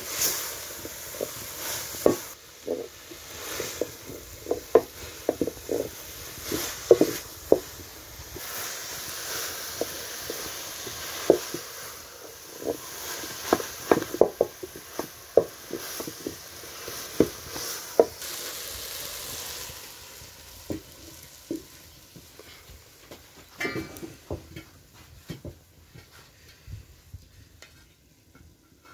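Wooden spatula stirring shredded cabbage in an aluminium pot, with frequent irregular knocks and scrapes against the metal over a sizzling hiss. After about twenty seconds the hiss fades and the knocks become sparse and quieter.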